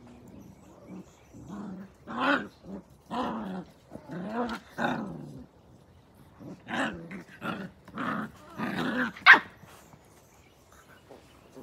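Blue heeler (Australian Cattle Dog) puppy growling and barking in play while mouthing a hand. Short growls come in two bouts, with a sharp loud bark about nine seconds in.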